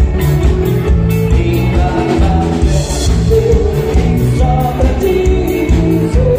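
Live dance band playing through the hall's loudspeakers, with a singer over a steady drumbeat.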